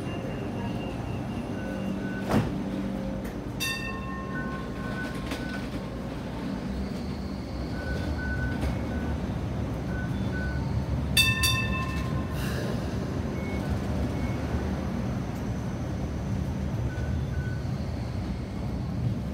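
Hong Kong Light Rail Phase V train pulling out of a stop and rolling past with a steady low rumble. There is a sharp clunk about two seconds in, and a bell-like warning signal sounds twice, about four and eleven seconds in.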